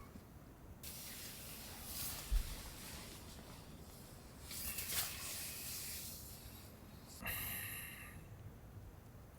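Hissing noise in several bursts, each about a second long, with a short low thump about two and a half seconds in.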